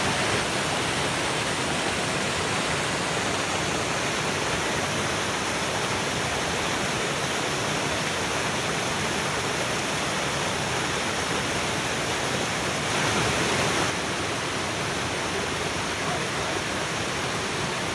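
Waterfall running: a steady rush of falling water with no break.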